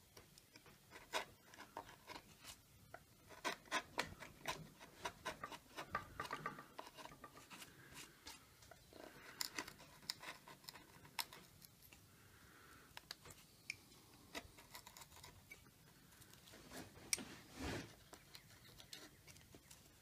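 Hand-pushed carving gouge cutting into wood: a run of irregular small crisp clicks and scrapes as the edge pares the grain and chips break away. A single louder knock comes near the end.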